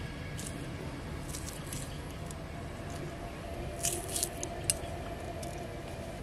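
Green chillies being sliced on a boti blade: a handful of short, crisp snips, most of them about four seconds in, over a steady low background hum.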